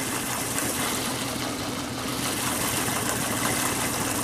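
Suzuki outboard motor running steadily at low throttle, a constant hum, with the hiss of river water rushing around the boat.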